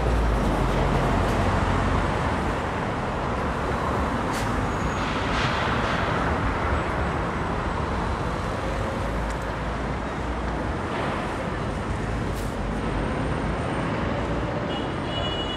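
City street traffic: motor vehicles running past with a steady low engine rumble, loudest in the first couple of seconds, and a short hiss about five seconds in.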